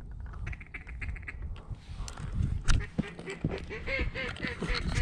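Mallard hen-style quacking: a string of short calls, about three a second, each falling in pitch. It is preceded by a quick rapid chatter of high notes and cut by a sharp click near the middle.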